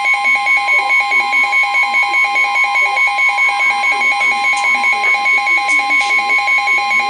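NOAA Weather Radio 1050 Hz warning alarm tone, a steady high tone, sounding together with a weather radio receiver's own alert alarm of rapid beeps, about four or five a second; the two signal that a warning is about to be broadcast.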